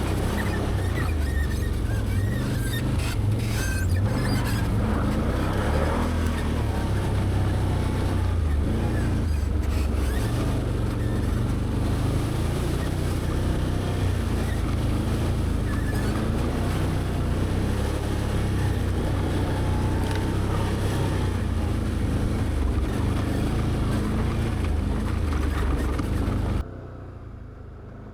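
Can-Am Outlander 850 ATV's V-twin engine running under way on a rough trail, its pitch rising and falling with the throttle. The sound drops off sharply near the end.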